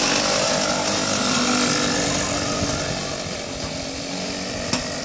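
Go-kart's small engine running as the kart passes close by, the sound fading as it drives off down the track. A single sharp click near the end.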